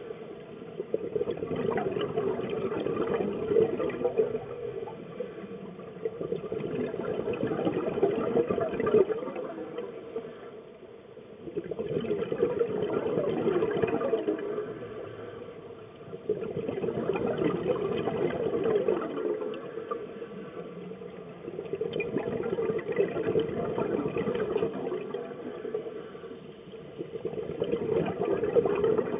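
Scuba diver's regulator breathing underwater: long bubbling exhalations that swell and fade, with short quieter gaps for each inhale, about every five seconds.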